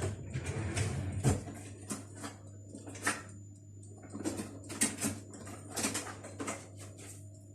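Kitchen utensils knocking and clinking against a mixing bowl and worktop, about a dozen irregular sharp clicks and taps, as the electric hand mixer is set aside for a hand whisk. A low rumble in the first second or so ends with a knock.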